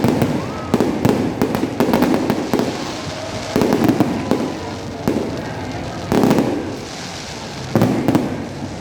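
Aerial fireworks bursting in rapid, irregular volleys of sharp bangs and crackles, with heavier clusters every second or so.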